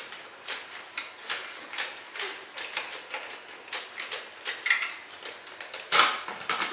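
Spray mop's trigger clicked over and over, about two to three clicks a second, with a louder knock near the end: the mop is not spraying, and she wonders whether it is broken.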